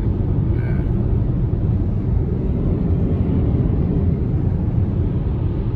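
Steady low rumble of road and wind noise from a moving vehicle.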